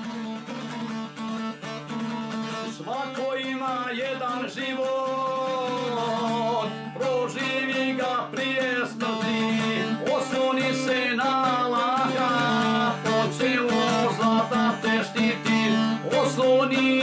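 Šargija, the long-necked Bosnian lute, played as a plucked instrumental tune over a steady drone, with the melody coming in about three seconds in and the playing growing louder.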